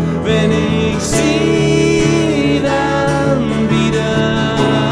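Live band playing a song: piano and bass guitar hold sustained chords while a lead melody line slides up into its notes above them.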